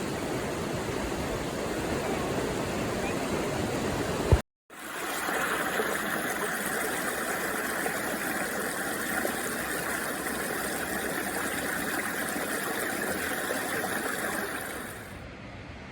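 Waterfall rushing, a steady hiss of falling water. About four and a half seconds in it breaks off sharply with a click and resumes as a brighter rush of falling water from another fall. It drops quieter just before the end.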